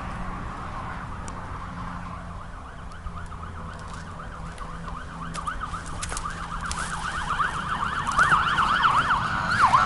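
Police car siren yelping in fast rising-and-falling sweeps, faint at first and growing steadily louder as the car approaches.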